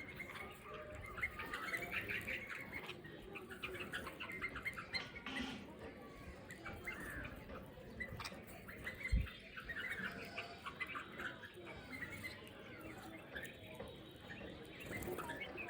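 Many small birds chirping and chattering together in dense overlapping calls, with one dull low thump about nine seconds in.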